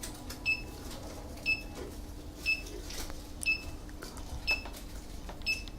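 Wisen alarm panel beeping once a second after being set to away arm: short, identical high beeps, about six in a row, the usual exit-delay countdown.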